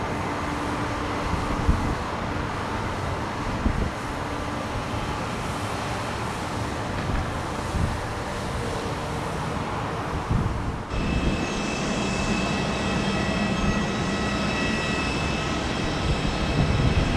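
Jet airliner engines running, heard as a steady rushing noise. About eleven seconds in it changes abruptly to engine noise with several steady high-pitched whine tones and a low hum.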